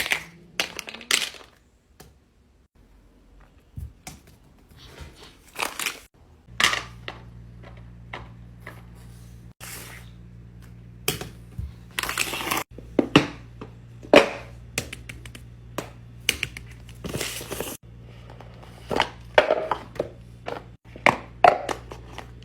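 Fidget toys being handled: scattered short clicks, crinkles and squishy crackling noises, with a low steady hum underneath from about six seconds in.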